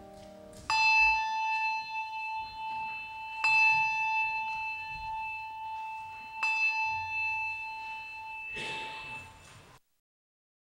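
A single bell struck three times, about three seconds apart, each stroke ringing on at one clear pitch and fading slowly. A short rustle comes just before the sound cuts off near the end.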